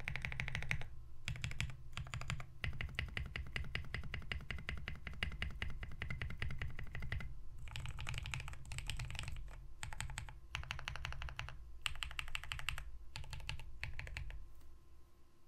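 Typing on a custom-built compact mechanical keyboard with lubed Blackberry Boba switches on a POM plate, gasket-mounted in a machined aluminium and brass case, with Kat Alpha keycaps. The keystrokes come in fast runs broken by short pauses, and they thin out near the end.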